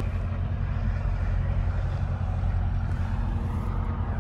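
Single-engine light aircraft's piston engine and propeller running steadily, heard as a low, even drone inside the small cockpit.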